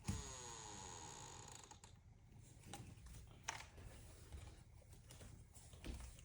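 A sharp metallic clack, then a ringing rattle that fades over about two seconds, followed by a click and a soft knock: metal parts of a keypad door lock being handled during installation.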